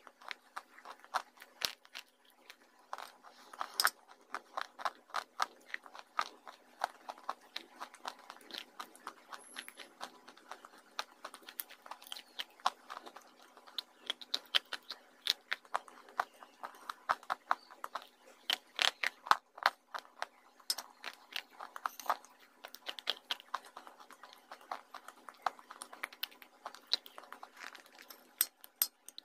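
Dry baked clay pieces being bitten and chewed close to a lapel microphone, some eaten with wet clay paste: many sharp, irregular crunches with soft chewing between them.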